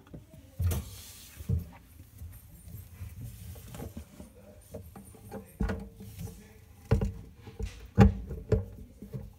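Scattered knocks, scrapes and handling noise as a dish-soap-filled bottle is brought up and screwed onto the underside of a sink-mounted liquid soap dispenser. The knocks are irregular, and the loudest comes about eight seconds in.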